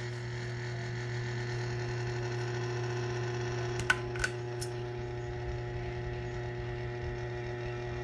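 Ceiling fan running with a steady electrical motor hum, with a few short light clicks about four seconds in.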